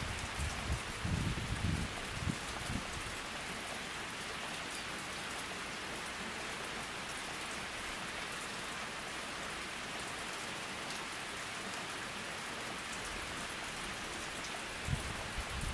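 Steady rain falling on a pond and the trees and grass around it, an even hiss of many drops. A few low rumbling bumps come in the first three seconds and again near the end.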